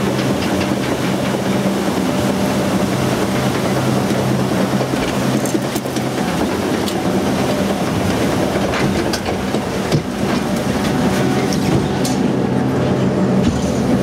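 Water-ride boat being carried up the lift hill: the lift mechanism runs with a steady low hum under a continuous rattle and clatter, with scattered sharp clicks.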